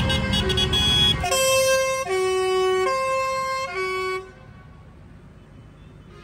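Tractor engines running as they pass, then a two-tone horn sounding alternate high and low notes, four notes of under a second each, stopping at about four seconds. After that only a low engine rumble is left.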